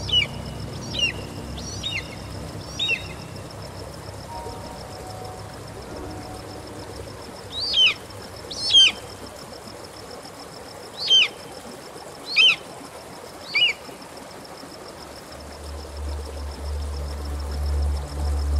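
A bird calling: about nine short, sharp calls that sweep downward in pitch, some in quick pairs, spread out with gaps between them. A faint steady high tone runs underneath, and a low rumble comes in near the end.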